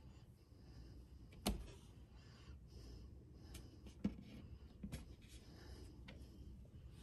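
A few quiet taps and bumps, the sharpest about a second and a half in and two more near the four- and five-second marks, with faint rustling between: a cat pawing at the edge of a wooden shelf.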